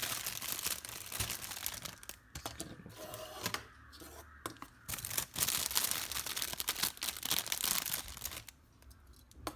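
Packaging being unwrapped from a stored Lego set, crinkling and tearing in two bouts: one in the first couple of seconds, a longer one from about halfway until shortly before the end, with a few small clicks in between.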